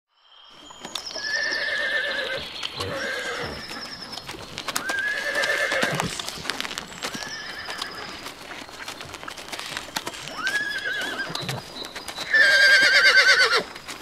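Horses whinnying again and again: about six wavering calls about a second long, the last and loudest just before the end. Hooves clip-clop and click throughout.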